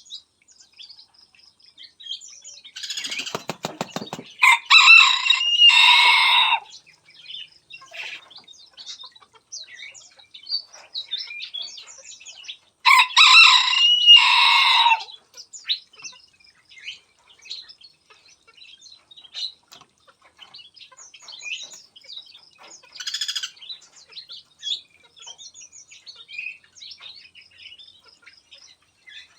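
A rooster crowing twice, each crow about two seconds long, the first just after a quick burst of wing flapping. Small aviary birds chirp between the crows.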